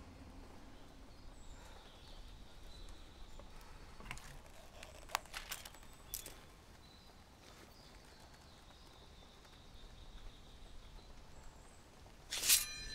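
Quiet forest ambience with faint, thin bird calls. A few sharp clicks of handling come around four to six seconds in, and a short, loud rush of noise near the end is the loudest sound.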